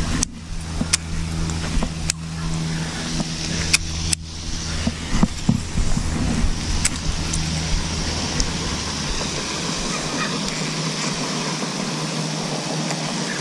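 A steady low engine hum, like a nearby vehicle, over a constant hiss; the hum drops away about ten seconds in. A handful of sharp clicks come in the first four seconds or so.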